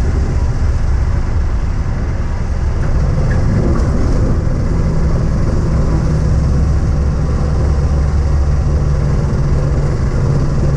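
Van's RV-12 light aircraft's Rotax 912 four-cylinder engine and propeller running steadily, heard from inside the cockpit over rushing air noise. The low drone gets a little stronger about three seconds in.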